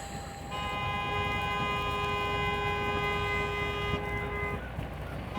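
Car horn honking: one long two-tone blast of about four seconds, then a second blast starting right at the end.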